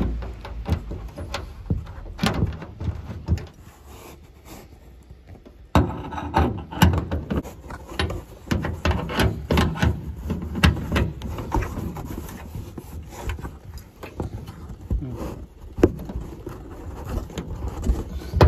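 Rubbing and scraping against the headliner as a hand threads the sharkfin antenna's 22 mm hex nut onto its mount. From about six seconds in come louder, close-spaced clicks and scrapes of a 20–22 mm spanner doing the final tightening of the nut.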